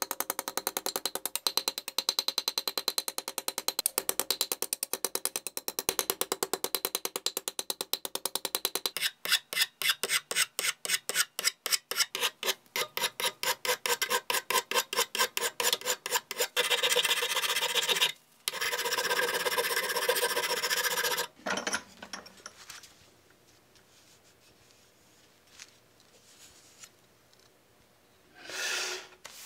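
A small hammer tapping rapidly on a heavy pressed-steel toy truck part against a steel anvil, straightening the metal. About nine seconds in it gives way to a hand file rasping on the steel edge in strokes of two or three a second, then a few seconds of unbroken rasping, after which it grows much quieter.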